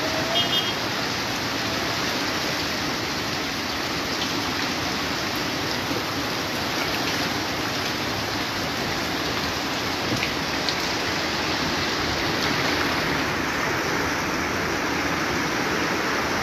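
Steady rush of heavy rain and fast-flowing floodwater running across a flooded street.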